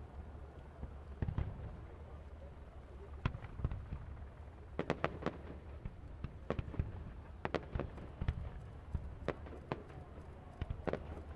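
Fireworks display: a string of sharp bangs and crackling pops from bursting shells at irregular intervals, bunching into quick clusters about five seconds in and again near the end.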